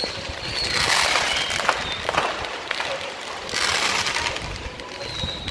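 Ground fireworks fountains hissing and crackling, swelling twice, with scattered sharp pops.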